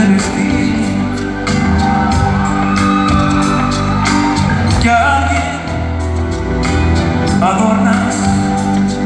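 Live band playing a ballad on stage, with a voice singing over it, heard from the audience in a large concert hall.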